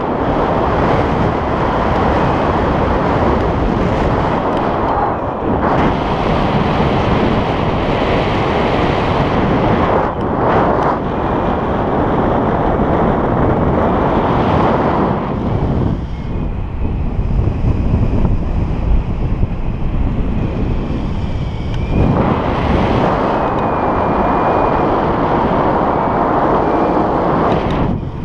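Airflow of a paraglider in flight blowing across a pole-mounted GoPro's microphone: loud, continuous wind noise that rises and falls, with a few brief lulls.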